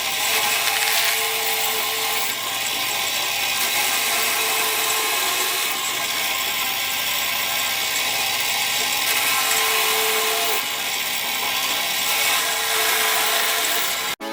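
Power tools running with a steady, harsh whine. The sound shifts several times, as if between separate clips, and cuts off suddenly near the end.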